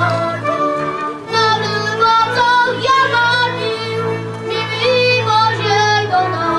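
Children singing a folk song in unison, accompanied by a folk string band of fiddles over a steady bass.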